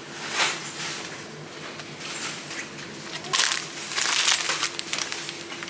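Plastic packet of bulgur being handled, its packaging crinkling in short bursts, loudest for a stretch about three and a half seconds in.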